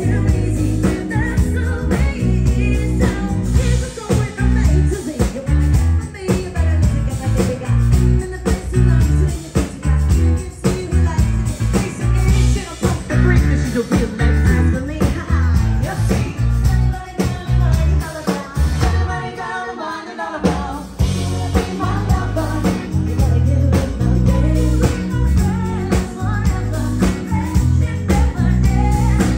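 Live band playing, with a woman singing lead over bass guitar, keyboard and drums. About two-thirds of the way through, the bass and drums drop out for a moment before the full band comes back in.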